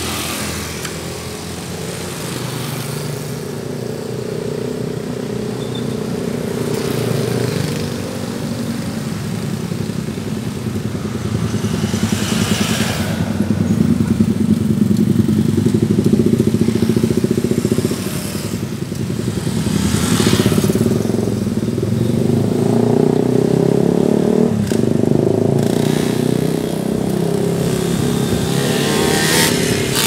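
Street traffic: motorcycle and car engines running steadily as vehicles pass close by, with louder passes about 12 and 20 seconds in and near the end.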